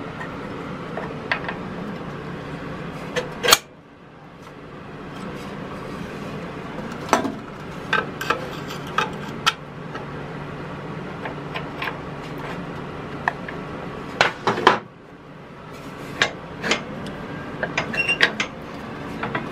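Scattered metal clicks and clinks of a drum brake's shoe adjuster being fitted and worked into place against the steel backing plate and brake shoe, the sharpest about three and a half seconds in and again near fourteen seconds. A steady low hum runs underneath.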